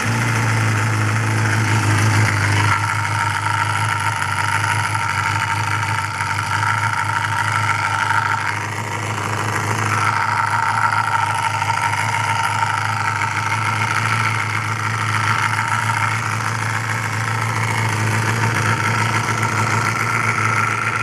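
Honda MC23 Jade's 250 cc inline-four MC14E engine idling steadily just after being restarted, freshly rebuilt to cure an abnormal engine noise; the owner's reaction afterwards, 'this isn't how it should be', suggests it still does not sound right.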